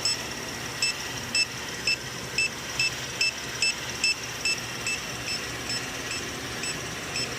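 Electronic refrigerant leak detector beeping steadily, about two short high beeps a second and quickening slightly, as it is passed over A/C seals and the condenser to sniff for a leak. A steady low hum of the running engine lies underneath.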